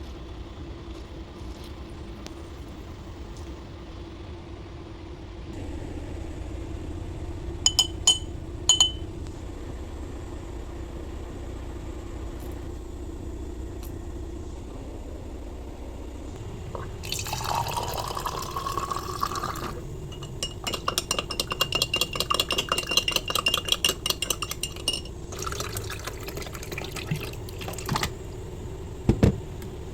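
A spoon clinks twice against a glass, then liquid is poured into the glass, its pitch rising as it fills. After that, a spoon stirs quickly with rapid clinking against the glass.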